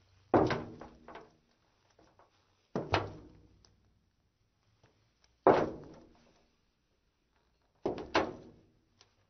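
Women's heeled shoes walking slowly on a metal surface: four footsteps about two and a half seconds apart, each a sharp clack that rings briefly in the metal.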